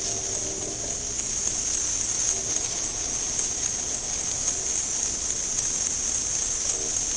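Steady rain falling: a dense, even hiss with a fine patter of drops.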